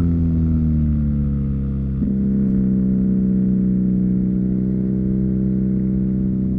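2019 BMW R nineT's boxer twin engine running through an Akrapovic slip-on exhaust, heard onboard while riding. Its pitch eases down for about two seconds, breaks briefly, then holds steady.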